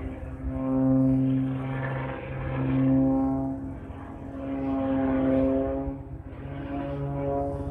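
Aerobatic propeller plane's engine and propeller, heard from the ground during a smoke-trailing tumbling dive. The sound swells and fades about every two seconds, and its pitch shifts as the plane manoeuvres.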